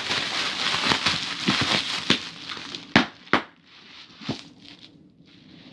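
Packing material crinkling and rustling as it is handled and pulled out of a tightly packed shipping box, with three sharp snaps about three to four seconds in, then quieter.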